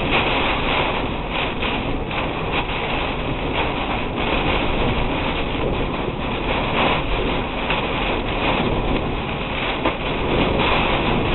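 Storm wind and heavy rain buffeting a moving car, heard from inside the cabin through a dashcam microphone: a dense, steady rush of noise.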